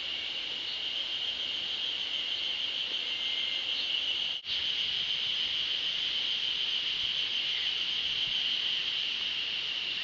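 Steady, high-pitched insect drone from the summer woodland, one unbroken even band of sound, with a brief gap about four seconds in.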